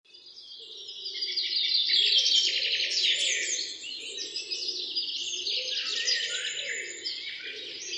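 Chorus of many birds chirping and calling densely, fading in over the first two seconds.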